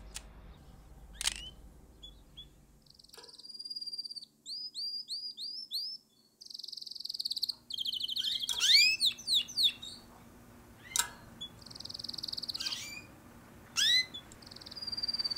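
Canaries in an aviary chirping and trilling, starting about three seconds in: repeated short high rising chirps and quick runs of trills.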